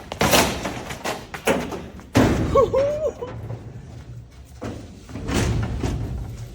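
A series of bangs and thumps, the loudest about two seconds in, with a short wavering squeak soon after, and longer rustling knocks near the end.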